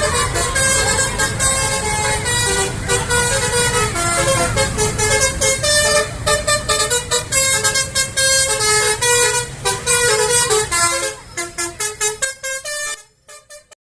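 Bus 'telolet basuri' multi-tone air horn playing a quick melody of changing notes over a low rumble. Near the end the notes break into short blasts and then stop.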